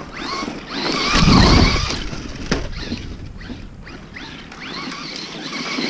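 Traxxas Rustler 4x4 VXL RC stadium truck driving on dirt: its brushless motor and drivetrain whine rising and falling over and over as the throttle is worked. There is a louder low rumble about a second in.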